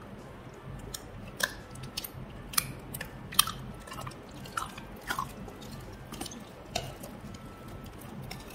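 Clear glitter slime in a jar, poked and squeezed by fingers, giving a run of sharp sticky clicks and pops, loudest in the first few seconds.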